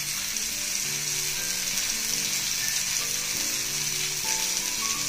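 Masala-coated murrel (korameenu) fish steaks shallow-frying in a little oil on a black iron tawa, a steady sizzle as a fresh spoonful of oil is poured around them.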